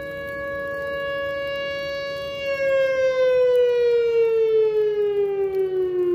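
Outdoor warning siren holding a steady tone, then from about two and a half seconds in growing louder and sliding steadily down in pitch as it winds down. Fainter steady siren tones sound beneath it.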